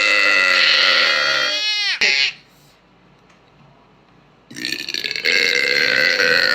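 A woman letting out two long, loud burps: the first drops in pitch as it ends, about two seconds in, and the second starts after a short pause and runs on to the end.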